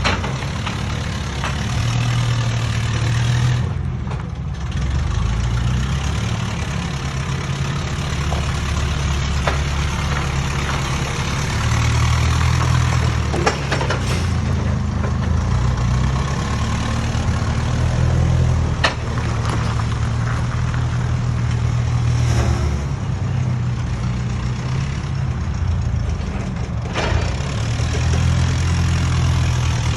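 Heavy engine running, its pitch shifting up and down a few times as under changing load, with a few sharp clanks.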